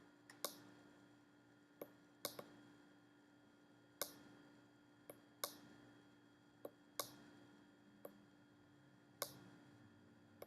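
Small tactile push button on a breadboard being pressed and released to key Morse code into a Raspberry Pi, giving about a dozen sharp clicks at irregular spacing, some in close pairs. A faint steady hum runs underneath.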